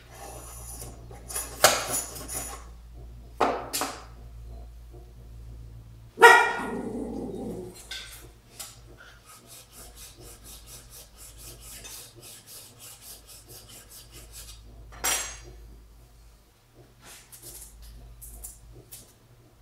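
Hand planing bamboo rod strips in a steel planing form: a few short plane strokes and the handling of metal tools. A loud pitched sound about six seconds in, then light, rapid ticking.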